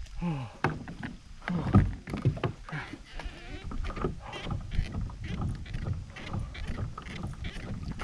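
Water splashing and irregular knocks and clatter around a small fishing boat, with a short voiced exclamation just after the start.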